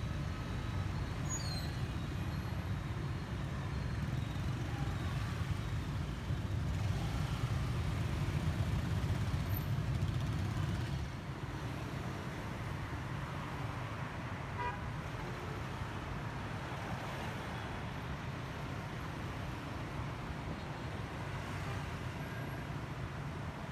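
Road traffic: a steady low rumble of passing vehicles, swelling for a few seconds and easing off about eleven seconds in.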